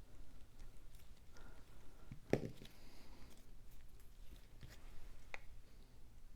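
Cut cardstock pieces being handled on a craft table: faint scattered taps and light rustling, with one louder tap about two seconds in.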